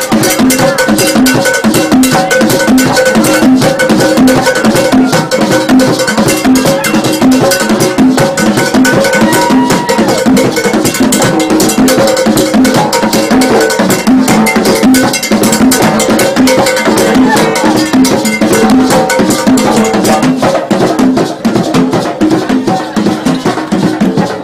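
Loud upbeat dance music driven by fast, dense percussion with a steady repeating beat.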